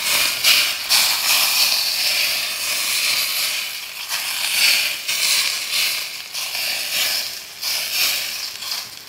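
Smoking-hot peanut and sesame oil poured over raw ginger, green onion, cilantro and soy sauce on steamed chicken, sizzling and crackling. The sizzle surges and eases as the oil is poured, then dies away near the end.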